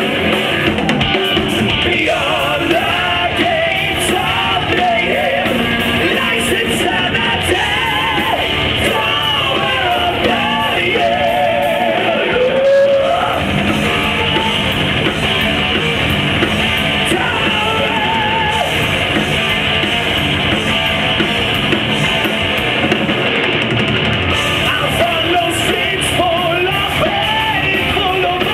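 A heavy metal band playing live: a male singer holding long notes with vibrato over distorted electric guitars and drums. The sound is loud and dense, as heard from the audience.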